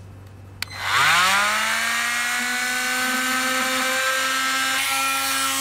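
Milwaukee M12 cordless oscillating multi-tool switched on with a click, spinning up to a steady high whine and cutting into an RV baggage door, then winding down near the end.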